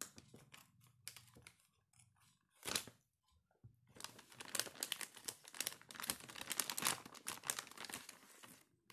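Scissors cutting open a plastic pouch of cat treats with a few sharp snips and a short rip, then the pouch's plastic crinkling continuously from about four seconds in as the treat sticks are handled and pulled out.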